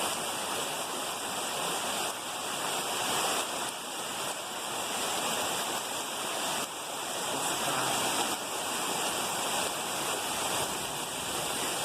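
Steady rush of flash-flood water pouring down a street in heavy rain.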